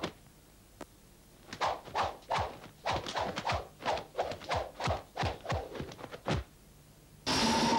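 Dubbed kung fu film strike sound effects: a quick run of sharp whooshing thunks, each falling in pitch, about three a second, beating out the moves of a martial-arts form. They begin after a quiet second and a half and stop a little after six seconds in. Near the end a loud, steady sound with held tones cuts in suddenly.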